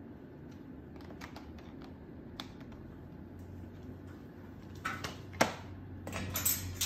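Scattered clicks and taps on a hardwood floor as a Moluccan cockatoo handles a plush toy puppy with its beak and feet, lifting it and dropping it back down. The taps are sparse at first, then thicken into louder knocks about five seconds in, the sharpest a single knock, with more in a cluster near the end.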